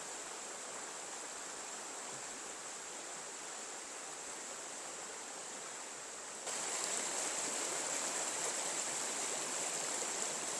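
Small stream flowing, a steady rush of water that steps up suddenly in level about six and a half seconds in.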